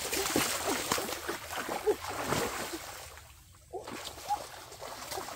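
Muddy shallow water splashing and sloshing as hands grope through it for fish. It is busiest for the first three seconds, then quieter with a few splashes after that.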